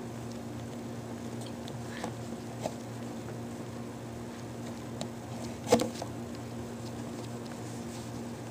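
Quiet room tone: a steady low electrical hum with a few faint clicks, and one louder sharp click a little under six seconds in.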